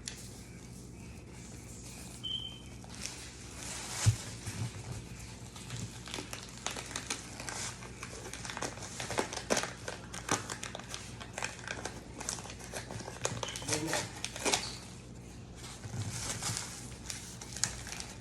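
Plastic wrap crinkling and crackling as it is handled and pulled off a wrapped bundle, in a busy run of sharp crackles, with one louder knock about four seconds in.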